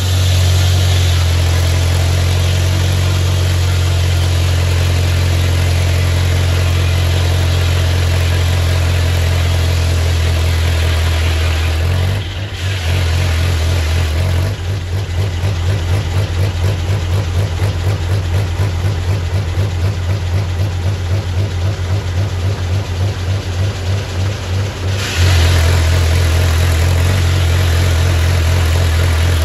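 Straight-piped Farmall Super M four-cylinder tractor engine running the sawmill, loud and steady. About twelve seconds in it drops briefly, then runs with an uneven pulsing for about ten seconds, and picks back up to a loud, steady run near the end.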